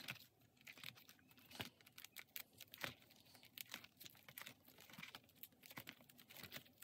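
Faint crinkling and rustling of plastic pocket pages in a card binder being flipped through, with scattered light clicks as the pages turn.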